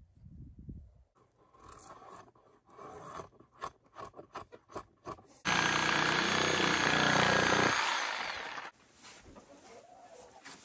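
A handheld power saw cutting through a rough-cut 2x4 for about three seconds, then winding down. Before it, a run of short scraping strokes on the wood.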